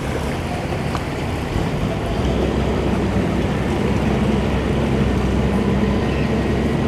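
Single outboard motor on a Wellcraft walkaround boat running at low idle speed as the boat moves close by, a steady hum that grows a little louder after about two seconds.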